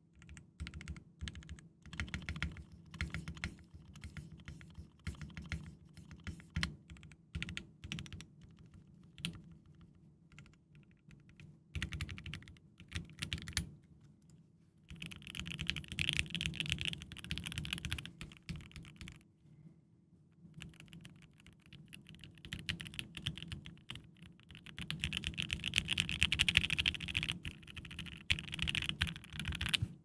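Typing on a Think6.5 V2 aluminum-case mechanical keyboard with lubed, filmed Mauve linear switches and PBT keycaps. Separate key presses come first, then fast continuous typing runs in the second half, with short pauses between.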